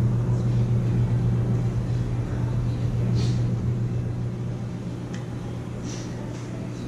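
A steady low hum that eases off slightly past the middle, with a few faint clicks from handling.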